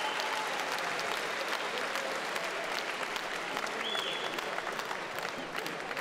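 Arena crowd noise: a steady wash of applause and cheering from spectators around a fight ring, with scattered claps.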